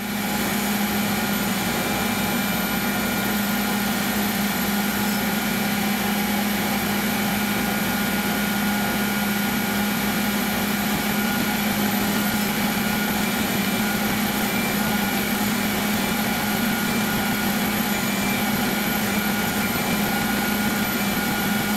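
Belt grinder running steadily, a constant motor hum with a high whine over it, as a thin steel chef's knife blade is ground against the belt to cut its edge bevels. It starts and stops abruptly.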